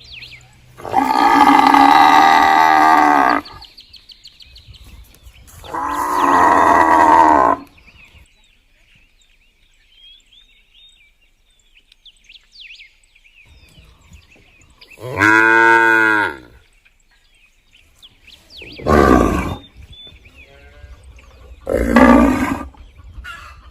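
Village cattle mooing five times, with two long moos in the first half and three shorter ones in the second half. Faint bird chirps sound in the gaps between.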